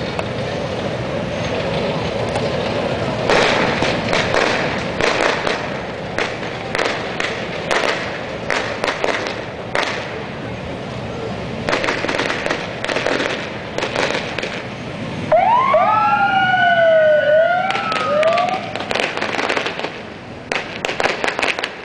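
Police motorcycle sirens sound briefly about two thirds of the way through, several wailing at once in overlapping rising and falling tones. Before and after them come sharp, irregular bangs over a steady crowd noise.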